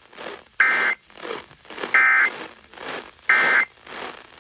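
Emergency Alert System end-of-message signal: three short buzzing data bursts of SAME digital tones, about 1.3 seconds apart, marking the end of the alert. A crackling static hiss runs between the bursts.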